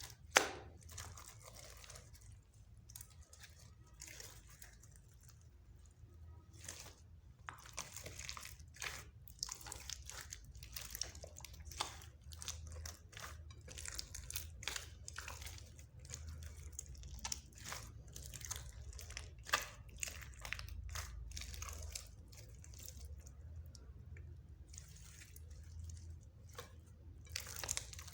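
Slime being kneaded and stretched by hand, making irregular wet clicks, pops and crackles, with a sharp pop just at the start.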